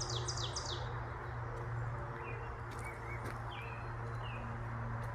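Songbirds singing over the steady hum of distant traffic: a fast run of repeated down-slurred notes that ends about a second in, then a few short chirps.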